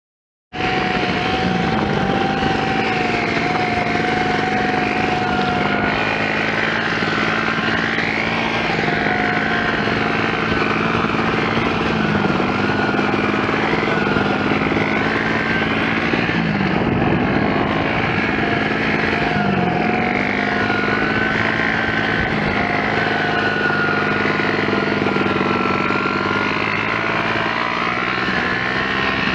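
A Tao DB14 110cc dirt bike's single-cylinder four-stroke engine running under way, cutting in suddenly about half a second in. Its pitch holds steady and dips briefly and recovers several times as the throttle and gears change.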